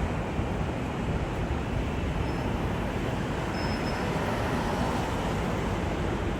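Steady vehicle noise: an even low rumble with a rushing hiss above it, unbroken throughout.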